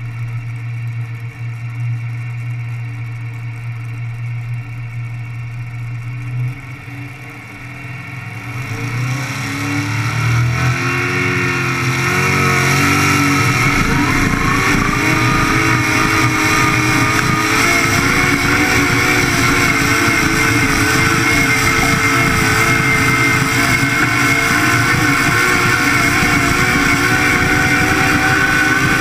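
Single-engine modified pulling tractor's engine running low and steady, then about nine seconds in revving up, rising in pitch over a few seconds. It then holds loud and steady at high revs under load through the pull.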